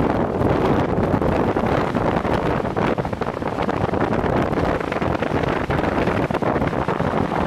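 Steady road and wind noise inside a moving vehicle's cabin at highway speed.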